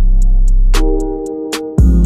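Intro music with a steady beat: ticking hi-hat, a deep bass line and held synth chords. The bass drops out about halfway through and comes back with a hit just before the end.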